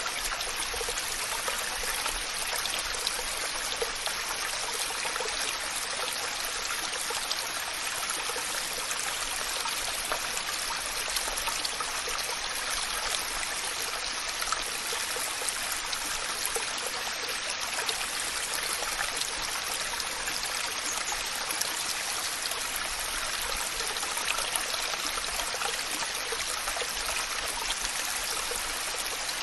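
Waterfall rushing steadily: falling water with a continuous, even hiss and no breaks.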